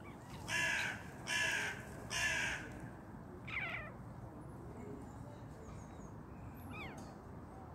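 A crow cawing three harsh times in quick succession, then a shorter call that falls in pitch about a second later.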